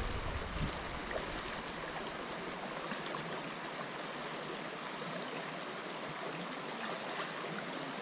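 Shallow mountain river running over stones and gravel: a steady wash of flowing water.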